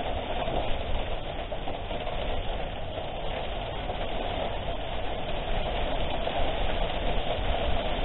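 Strong typhoon wind blowing steadily and buffeting the microphone with a low rumble.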